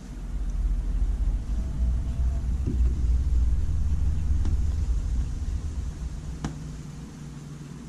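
A low rumble with two sharp clicks about two seconds apart, the second louder, as a screw is turned by hand with a screwdriver into a 3D-printed plastic edge guard on a kayak's aluminium crossbar.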